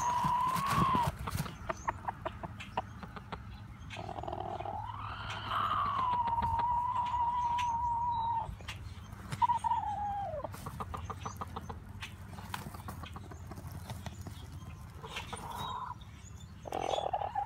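Rooster's nest-showing calls from inside a covered nest box. The calls are drawn-out, crooning notes, one long call that rises and then holds steady, and a shorter one that falls away. Between them come fast runs of soft, clicking clucks.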